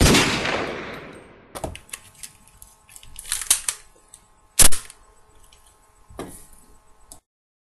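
Gunshot sound effects: a loud bang whose echo fades over about a second and a half, then a scatter of clicks and knocks and a second sharp bang a little past halfway, cutting off abruptly near the end.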